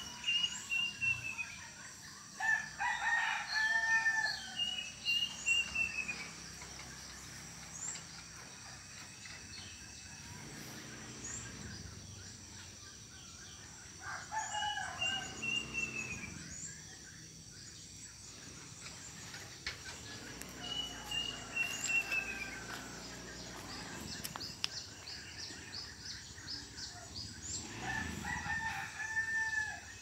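Domestic roosters crowing about four times, each crow a drawn-out, arching call. Between and over them, a bird whistles short series of clear notes that fall in pitch, typical of the plaintive cuckoo (uncuing, kedasih) calling at dusk.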